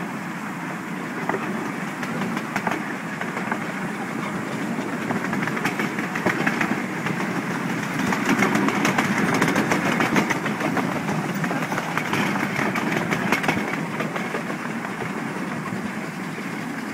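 Ride-on 7¼-inch gauge miniature steam train running along the track, heard from the car behind the locomotive: a steady rolling rush, with a run of quick clicks from the wheels over rail joints and points in the middle.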